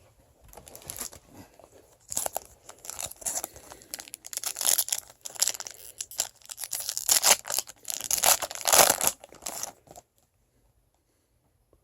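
A foil trading-card pack wrapper being torn open and crinkled, irregular crackling rustles, stopping about two seconds before the end.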